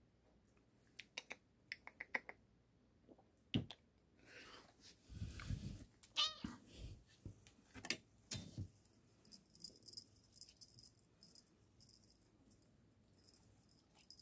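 A domestic cat gives a short, wavering meow about six seconds in, among scattered soft clicks and rustling.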